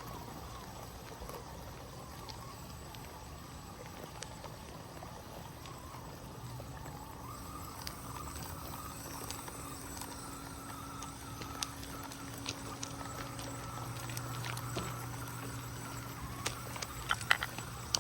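Small electric motor of a 1/24-scale RC crawler running with a faint steady whine, strongest in the second half, with a few sharp clicks and taps near the end.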